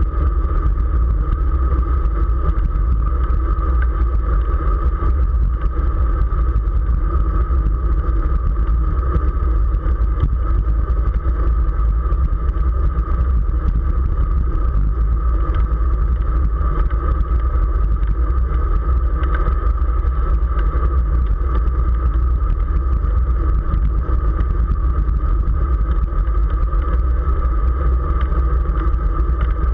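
Wind buffeting the microphone of a camera on a road bicycle moving at race speed: a loud, steady low rumble with a steady hum above it.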